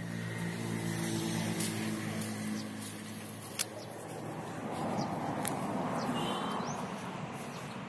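A motor vehicle's engine running with a steady low hum that fades out about three seconds in, followed by a swell of rushing noise. There is one sharp click about midway and a few short bird chirps later on.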